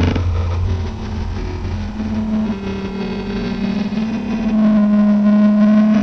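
Experimental lo-fi noise music: a sustained low drone with higher tones that slowly bend in pitch, over a grainy, distorted noise haze. A deep rumble underneath fades out about two seconds in.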